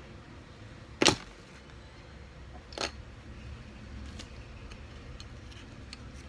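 Small plastic building bricks clicking as they are handled and pressed together: one sharp loud click about a second in, a softer one near three seconds, then faint small clicks.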